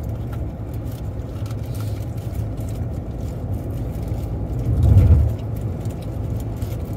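Road and engine noise inside a moving car's cabin: a steady low rumble that swells louder for about a second around five seconds in.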